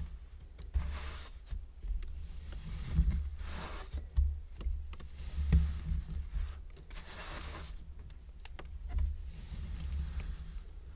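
Kinetic sand being cut and scraped with a metal tool: a series of soft, gritty swishes, roughly one a second, over low bumps.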